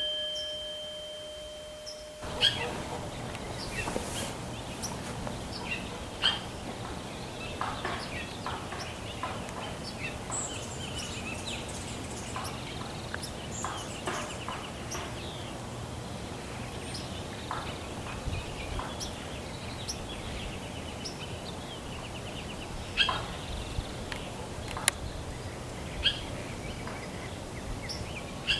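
A chime rings out and fades over about the first two seconds. Outdoor ambience follows: birds call and chirp at scattered moments over a low, steady hum.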